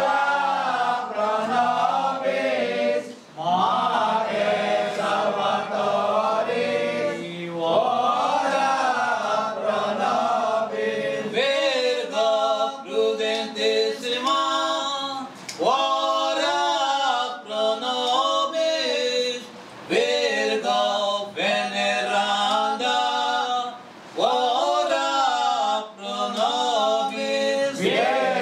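A group of people singing a hymn together without instruments, in phrases of a few seconds with brief breaks between them.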